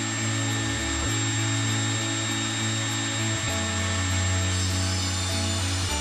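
Portable table saw running and ripping a wooden board, a steady high whine with the noise of the blade in the wood. Background music with a low bass line changing note every couple of seconds runs underneath.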